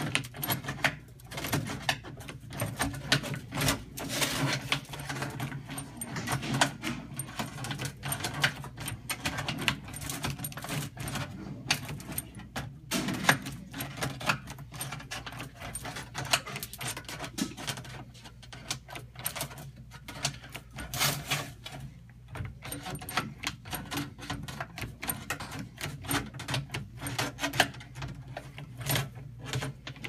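Hand duct crimper squeezing corrugations into the end of galvanized snap-lock round duct: many sharp metallic clicks and crinkles of sheet metal at an uneven pace as the jaws close stroke after stroke around the pipe, over a steady low hum.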